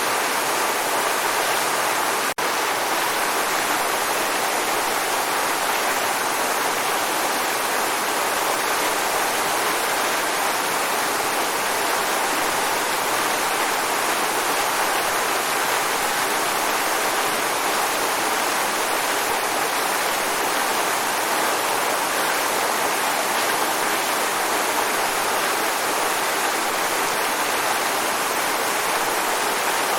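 Waterfall: a steady, even rush of falling water that does not change over time. There is one momentary dropout about two seconds in.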